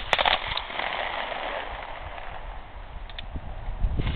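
The tail of a gunshot: a few sharp echoing cracks dying away in the first half-second, then steady outdoor background noise with two faint ticks about three seconds in.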